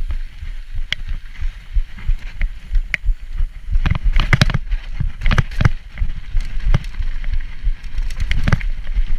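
Mountain bike being ridden, heard through the camera's microphone: a steady low wind rumble with frequent sharp knocks and rattles from the bike jolting over the ground. The knocks are thickest about four to six seconds in and again near the end.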